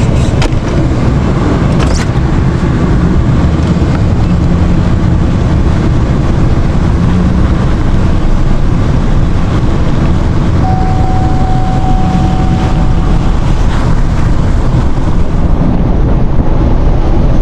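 Pickup truck driving, with steady engine and road noise heavy in the low end. A thin steady tone sounds for a couple of seconds about two-thirds of the way in.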